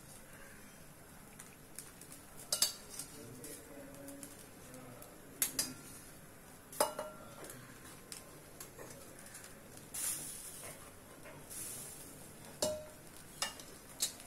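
A steel spoon clinking and scraping against a steel bowl as beaten egg is scooped out, with a handful of sharp clinks. There are short sizzles about ten and eleven and a half seconds in, as the egg lands on the hot griddle.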